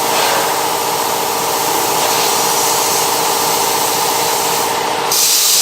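Steady hiss with a continuous machine hum from welding work. A little past five seconds the hum cuts out and a brighter, louder hiss carries on.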